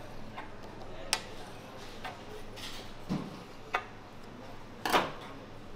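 A small knife ticking and tapping against the work surface as it cuts through a thin sheet of pistachio-covered katmer dough: about five sharp clicks at irregular intervals, the loudest near the end.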